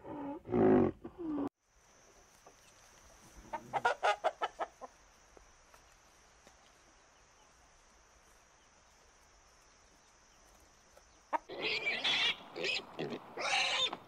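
A rooster giving a quick run of about eight clucks in just over a second, over a steady high-pitched whine. Deep, drawn-out animal calls before it cut off abruptly, and a burst of piglet squeals begins near the end.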